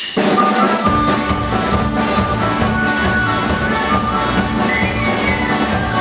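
Irish folk-punk band of accordion, tin whistle, acoustic guitar and bass guitar kicking in together suddenly, playing a tune with a steady beat and a high melody line on top.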